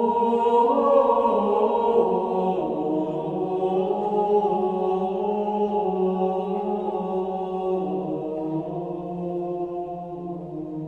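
Background music: slow chant-like vocal music, voices holding long notes that shift to a new pitch every few seconds and grow slowly quieter.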